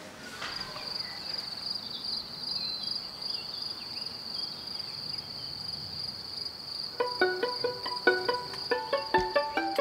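Steady high-pitched trilling of insects in a summer landscape. About seven seconds in, music of quick plucked-string notes comes in over it.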